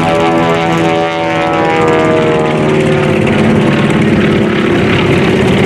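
Beech 18 twin-engine propeller plane flying past, its two 450-horsepower radial engines and propellers running loud. The engine note drops in pitch over the first three seconds as the plane goes by, then turns to a rougher, even drone.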